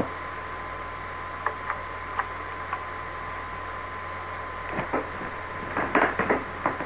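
Steady microphone hiss with a thin, steady high-pitched tone running through it, broken by a few faint clicks in the first few seconds and some soft short noises near the end.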